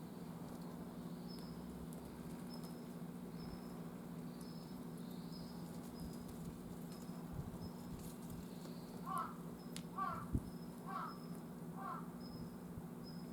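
Jungle crow cawing four times, about a second apart, starting about nine seconds in, over a steady low hum and a faint high chirping that repeats throughout.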